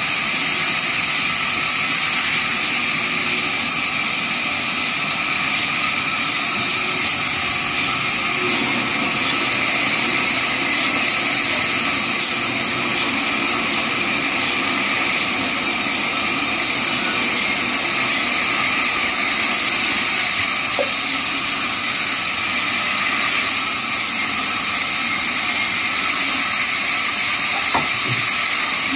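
Vertical band sawmill running steadily, its blade sawing through a log: a constant hissing rush with a steady high whine.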